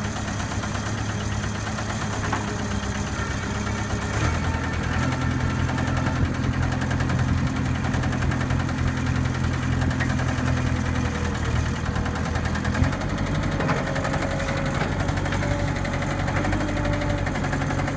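New Holland 555E backhoe loader's diesel engine running steadily with an audible engine noise, its note changing about four seconds in and again near thirteen seconds. The seller says the noise could be an exhaust leak, a fuel knock or a bad injector.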